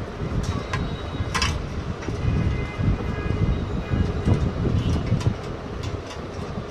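Monitor being taken apart by hand: scattered clicks and knocks of plastic and metal parts, with brief high scraping squeaks a couple of seconds in, over a steady low rumble.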